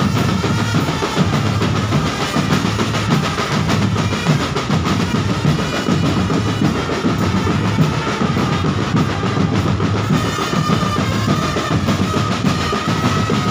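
Marching drum band playing: bass drum and snare-type drums beating a steady, continuous rhythm under a held melody line.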